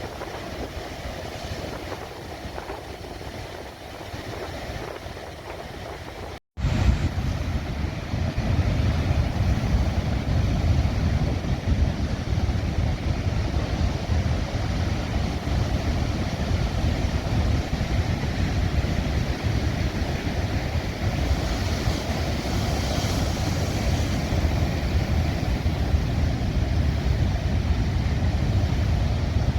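Heavy storm surf on a rocky coast, mixed with wind buffeting the microphone. A brief dropout about six seconds in, after which the low wind rumble is louder.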